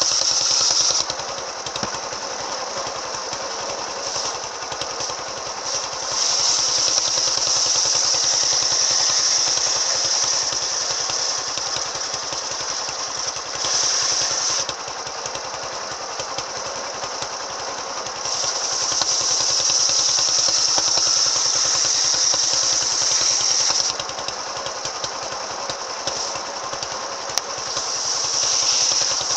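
Engine-driven mobile circular sawmill running with an AKM saw blade. Long louder, higher-pitched stretches of several seconds alternate with quieter running, as the blade works through timber and then spins free between cuts.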